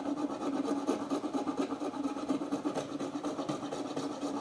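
Coping saw rasping back and forth by hand through a deer antler and wood whistle body, cutting an angled notch down toward the brass tube inside. A steady low hum runs underneath.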